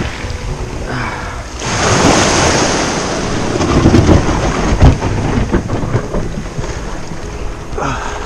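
Small waves washing up over a shingle beach around a sit-on-top kayak as it is pushed off through the surf, with wind buffeting the microphone. There are a few knocks about four to five seconds in.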